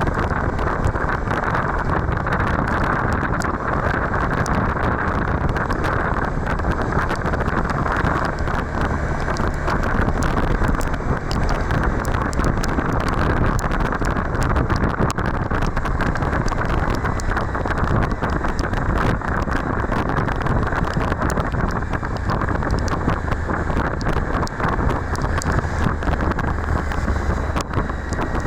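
Steady wind rush on the microphone of a Suzuki V-Strom 1050XT motorcycle at riding speed, with the motorcycle's running mixed into it.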